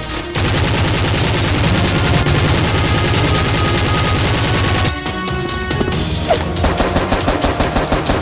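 Rapid automatic gunfire effects, a long sustained burst that breaks off about five seconds in, then quicker, choppier bursts over background music.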